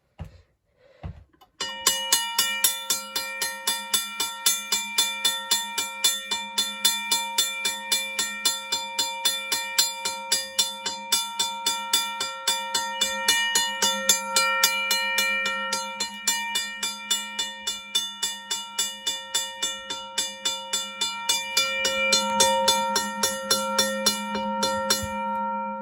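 Safetran mechanical railroad crossing bell, newly restored and under power, ringing: its hammer strikes the gong several times a second in an even rhythm, each stroke ringing on. It starts after a couple of faint clicks and stops shortly before the end.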